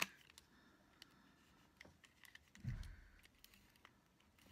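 Faint small clicks and a soft scratchy hiss as a correction-tape dispenser is handled and run over a planner page, with a dull low bump about two and a half seconds in.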